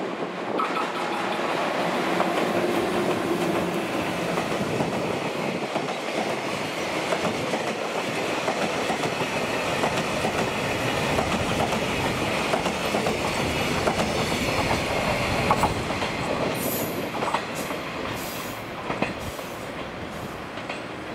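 A JR Freight EF210 electric locomotive and its long train of container wagons running past, wheels clicking steadily over the rail joints. The sound eases as the train draws away, with a few short high-pitched wheel squeaks near the end as the wagons take a curve.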